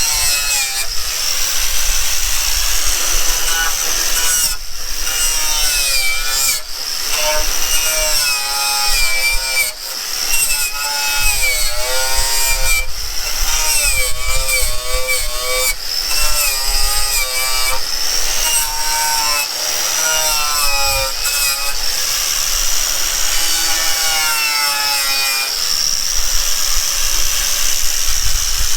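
Power tool spinning a wire wheel against metal, scrubbing and scraping. The motor's pitch repeatedly dips and recovers as the wheel is pressed on and eased off.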